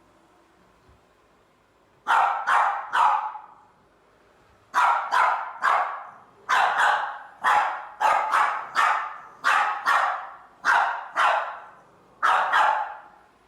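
A dog barking repeatedly in quick runs of two or three barks, about twenty in all, with short pauses between the runs.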